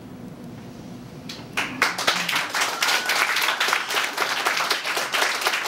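Audience applause breaking out about a second and a half in after a moment of quiet room tone, then many hands clapping densely.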